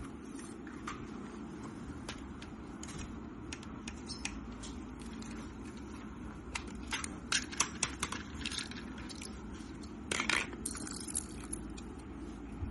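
Small plastic clicks and rattles of Lego parts being handled, bunched together in the middle, with a longer scraping rattle about ten seconds in, over a steady low background hum.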